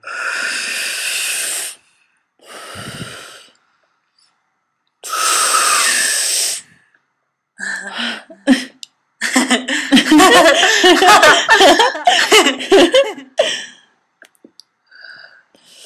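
Human mouth sounds made right at the microphone: three loud, breathy hissing blows, then scattered tongue clicks and pops. These build into about four seconds of rapid clicks mixed with quick, wavering squeaks.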